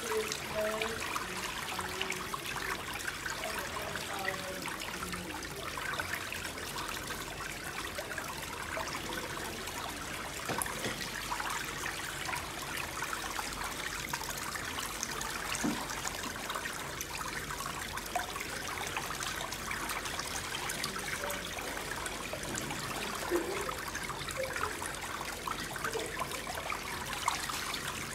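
Steady trickling of running water, an even crackling hiss that stays at one level throughout.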